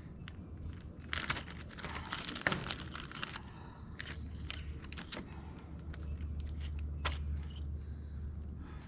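Hands rummaging among plumbing fittings and their packaging: a couple of seconds of crinkling and crunching, then several sharp clicks and taps. A low steady hum runs underneath.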